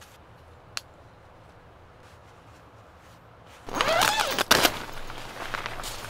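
Tent door zipper pulled open in one quick rasping stroke lasting about a second, nearly four seconds in, after a quiet stretch with a single faint click; tent fabric rustles after it.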